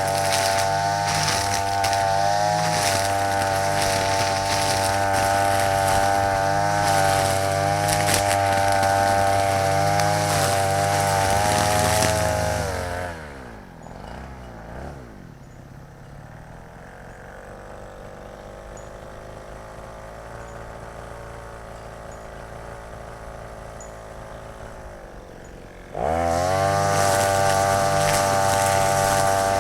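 Small brush-cutter engine spinning nylon trimmer line at full throttle. About 13 s in it drops back to idle, with the pitch falling. About 26 s in it is throttled up sharply to high speed again.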